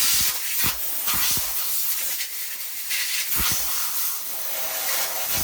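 Compressed-air blow gun hissing steadily, swelling and easing a little, as it blows grit out from between the leaf springs around the plastic rub blocks.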